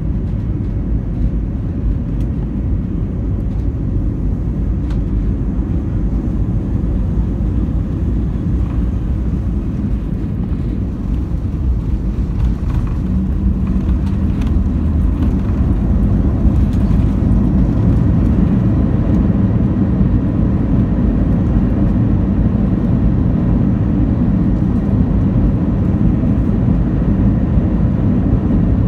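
Airbus A321 landing, heard inside the cabin: a steady low rumble of engines, airflow and wheels. The rumble grows louder about halfway through as the airliner rolls down the runway with its spoilers raised.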